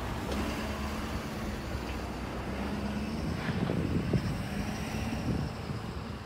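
Amtrak Auto Train rolling away down the track: a steady rumble of wheels on rail with a faint hum that comes and goes, mixed with wind noise.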